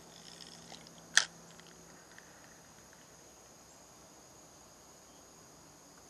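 Insects chirring steadily in a high, even drone. A few faint ticks come early, then one sharp, loud click about a second in.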